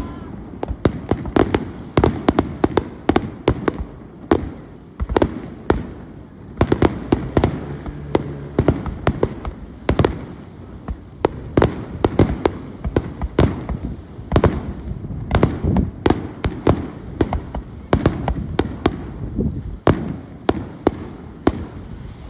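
Fireworks display going off in a continuous barrage: sharp bangs and crackles, several a second, over a low rumble of booms.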